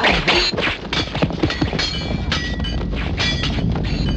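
Kung fu fight sound effects: a rapid run of strikes and blocks landing several times a second. From about halfway, some strikes leave a short ringing tone.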